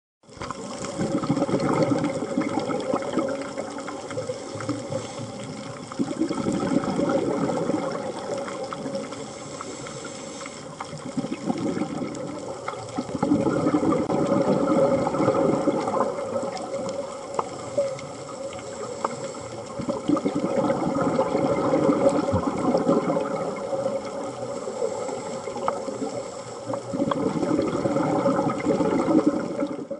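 Scuba regulator exhaust bubbles heard underwater, loud bubbling stretches of a few seconds each, with quieter spells between, following the diver's breathing.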